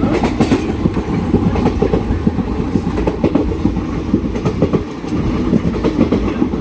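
Dharmavaram–Narsapur Express (17248) running at speed, heard from inside the coach: a loud, steady rumble with the clickety-clack of wheels over the rail joints.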